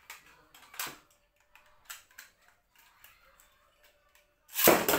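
Scattered small plastic clicks as a Beyblade top is fitted onto its launcher, then about four and a half seconds in a sudden loud burst of noise as the top is launched and hits the plastic stadium.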